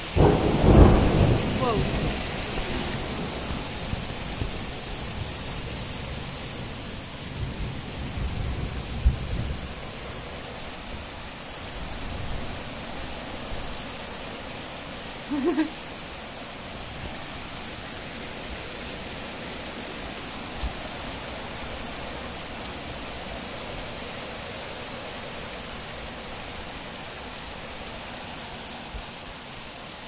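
Thunder cracks suddenly and rumbles loudly for a few seconds, following a lightning flash, with a second, weaker rumble about eight seconds in. The steady hiss of heavy rain runs under it throughout.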